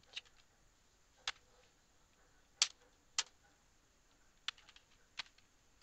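A handful of separate computer keyboard key presses, about six sharp clicks spaced roughly a second apart.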